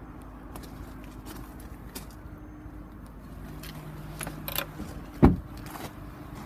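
Rear door of a 2008 Honda Ridgeline pickup being shut: a few light clicks, then a single loud thump about five seconds in, over a steady low hum.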